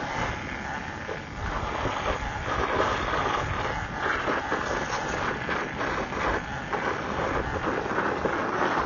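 Wind rushing over the microphone with tyre rumble from an electric dirt bike being ridden, a steady noise without a clear motor tone.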